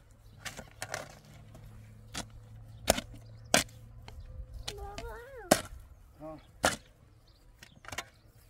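Sharp knocks at uneven intervals, about ten of them, with a short pitched call that rises and falls about five seconds in.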